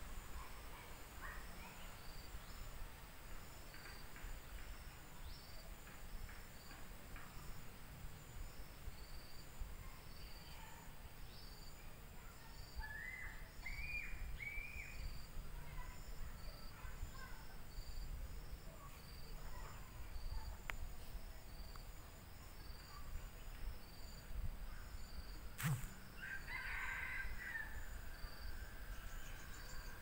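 A rooster crowing twice, about halfway through and again near the end, over crickets chirping in an even high pulse about once a second. A single sharp knock comes just before the second crow.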